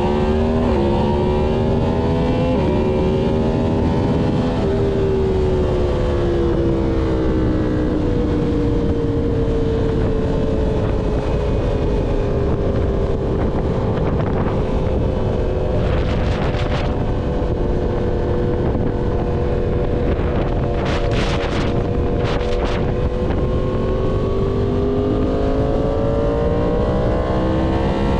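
Yamaha MT-10's crossplane inline-four through an SC Project full-system exhaust, heard on the move. The engine note climbs at the start, eases back to a fairly steady cruise, and rises again near the end, over a steady rush of wind. There are a few short sharp noises around the middle of the ride.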